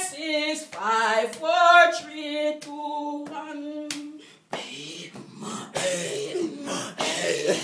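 A woman singing a revival chorus with hand claps on the beat, about two claps a second. About four seconds in the singing stops and gives way to breathy laughing and voices.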